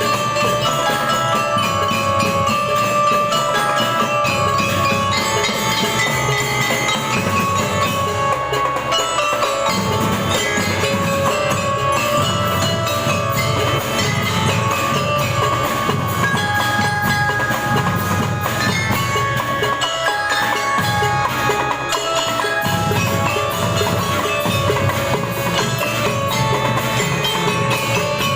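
School drum band playing a tune, with bell lyres (glockenspiels) carrying the melody in quick struck notes over steady drumming.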